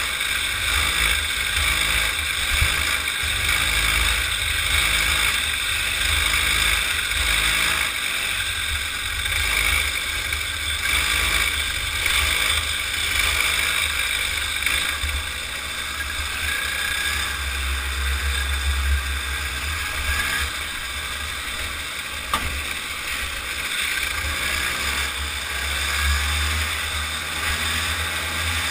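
Kid kart's small engine running under load as the kart laps the track, heard from onboard with a heavy low wind rumble on the camera microphone.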